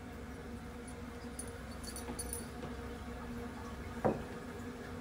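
A cat knocking a sneaker about on carpet: a single soft thump about four seconds in as the shoe tips over with the cat's head in it, over a low steady room hum with a few faint light clicks before it.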